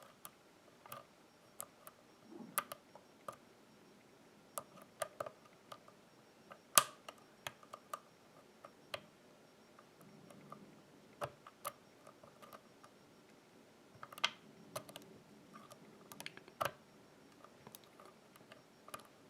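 Lock pick and tension tool working the pins of a pin-tumbler lock: scattered faint clicks as the pins are lifted and set, with a few sharper clicks about 7, 14 and 17 seconds in.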